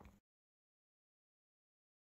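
Near silence: a faint trace of room sound cuts off a fraction of a second in, leaving complete digital silence.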